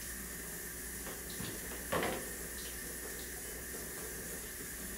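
Steady room hiss with a low hum, with faint small ticks and rustles of hands working strips of tape and paper, and one brief louder sound about two seconds in.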